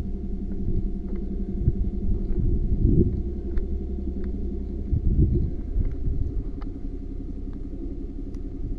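Steady low machine rumble with a constant mid-pitched hum, and a few louder bumps about three and five seconds in.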